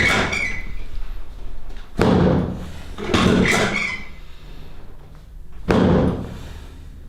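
Heavy thumps on a chiropractic treatment table during a pelvic adjustment with the patient lying face down: four sudden strikes a second or more apart, each fading away.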